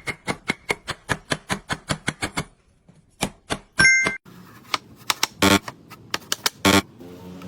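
A rapid series of sharp taps, about five a second, for the first couple of seconds. Then slower scattered taps, a brief two-note beep about four seconds in, and two heavier knocks near the end.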